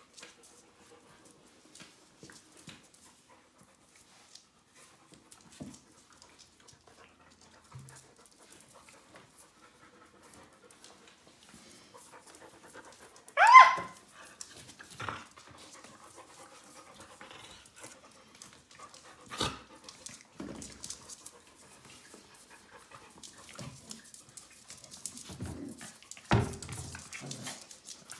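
Puppies play-fighting on a cork floor: panting and the scuffle of paws and claws, with one sharp, squealing yelp about halfway through and a few louder knocks and bumps later on.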